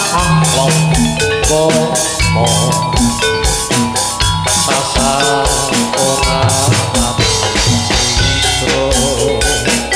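Jathilan gamelan music: drums and struck metal keys playing a steady beat.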